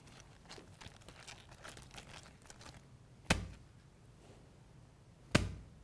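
A cabbage struck hard twice, about two seconds apart, each hit a sharp crunching thud, after faint crinkling of its leaves. It is foley for a punch landing and cracking teeth.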